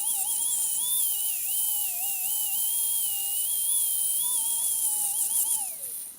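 Angle grinder rough-grinding the welds on a home-built steel anvil: a wavering whine over a steady high hiss. Near the end the whine falls in pitch and dies away as the grinder spins down.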